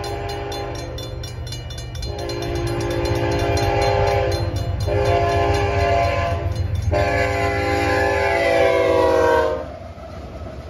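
Diesel freight locomotive's air horn sounding the grade-crossing signal: one blast ends about a second in, then come three more, and the last drops in pitch as the locomotive reaches the crossing and cuts off near the end. Underneath are the rapid even strokes of the crossing bell and the low rumble of the approaching locomotives.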